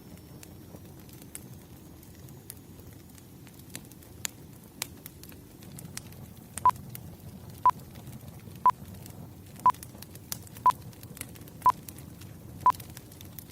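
Wood fire crackling, with scattered small pops over a low hiss. From about halfway through, a short electronic timer beep sounds once a second, seven times.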